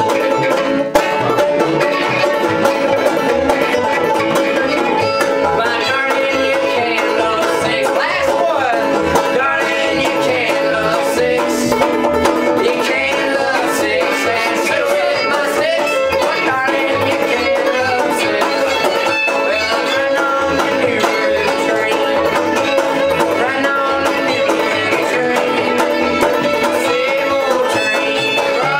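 Bluegrass string band playing an instrumental passage at a steady level: a fiddle bowing the melody over picked banjo and plucked upright bass.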